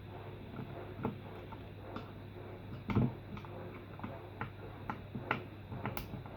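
Irregular small clicks and taps of a screwdriver and plastic housing parts being handled while an Eheim air pump is unscrewed and taken apart, with one louder knock about three seconds in, over a faint low hum.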